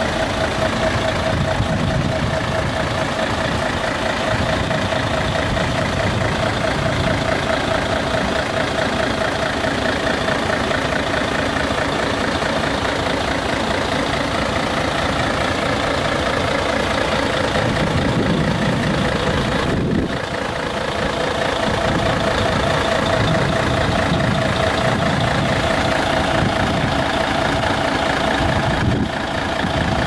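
Mercedes-Benz Actros 3241 concrete mixer truck's V6 diesel engine idling steadily, with a steady mid-pitched whine running over the rumble.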